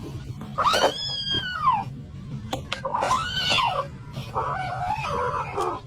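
A cat meowing three times in long, drawn-out calls that rise and then fall in pitch; the third call wavers.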